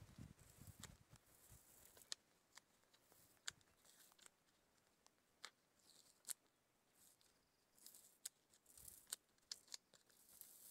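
Faint handling of the sticky paper insert of a delta trap: scattered sharp clicks and short, quiet crinkles as the sheet is unfolded and folded by hand.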